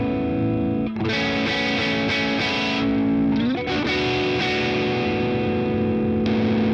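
Electric guitar played through a Demon FX Prince of Sound overdrive pedal: sustained overdriven notes and chords, with a slide up in pitch a little past halfway.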